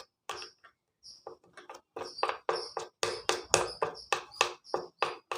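A comb drawn repeatedly through a bundle of sewing-machine thread to comb it out: a run of short brushing strokes, faint and sparse at first, then steady at about three a second.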